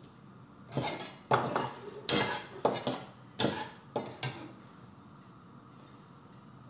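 A kitchen utensil clinking and knocking against a cooking pan, about eight sharp strikes in quick succession, as julienned ginger is added to the oil. The knocking stops a little past halfway through.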